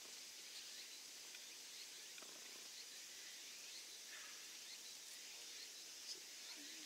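Near silence: faint outdoor ambience with a steady high-pitched hiss and a few faint short chirps.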